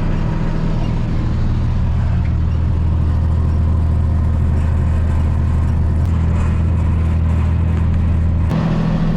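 Tractor engine running steadily while pulling a bush hog rotary mower through tall weeds, a deep even drone. About eight and a half seconds in, the note of the drone shifts.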